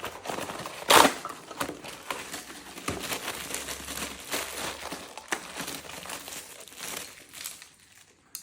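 Cardboard packaging being opened and handled, a busy run of crinkling and scraping with one louder crackle about a second in; it dies down near the end.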